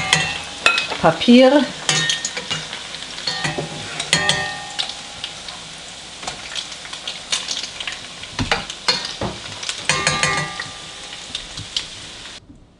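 Ring doughnuts deep-frying in a pot of very hot oil, the oil sizzling steadily, with sharp clicks of a metal spoon against the pot as the doughnuts are lifted out. The sizzle cuts off just before the end.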